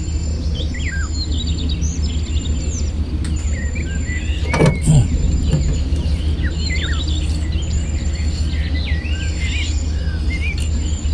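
Many small birds chirping and calling over a steady low rumble, with a brief thump a little before the middle.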